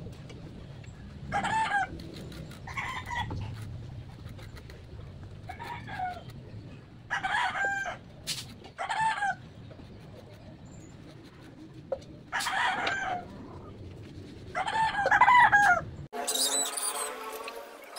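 Chickens clucking and calling: about seven short calls every few seconds over a low background rumble. About sixteen seconds in, the sound cuts abruptly to a steady mechanical whine.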